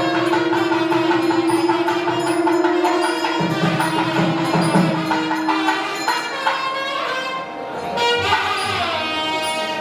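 South Indian temple music: a long held note over a steady percussion beat, the note stopping about halfway through. Ringing, bell-like strikes come in near the end.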